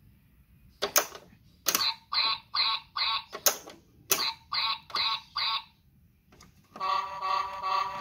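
Kiddieland Light and Sound Activity Farm Yard toy playing electronic sound effects as its buttons are pressed: a sharp click followed by a run of short buzzy bursts, about three in quick succession, twice over. Near the end, a longer pulsing electronic sound starts.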